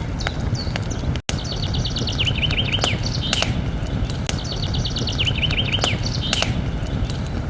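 Campfire crackling with sharp scattered pops over a steady low rumble, while a songbird sings the same phrase twice: a quick run of high notes dropping into a lower series of down-slurred notes. The sound cuts out for an instant a little over a second in.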